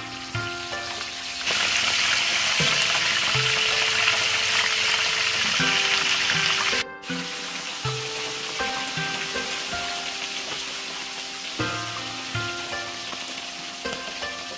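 Two whole fish deep-frying in a wok of hot oil. A loud sizzle starts about a second and a half in as the fish go into the oil. After a break about halfway through, the sizzle carries on somewhat quieter.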